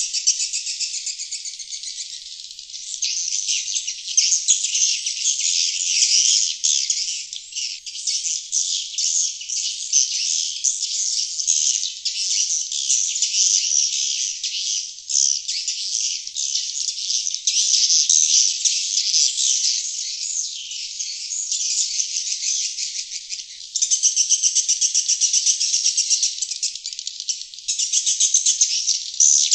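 Sriti swiftlet lure-call recording: a dense, continuous chorus of high, rapid twittering chirps from many birds overlapping, stepping up a little louder about four-fifths of the way through. It is the 'outside' call sound played to draw wild sriti swiftlets to a nesting house.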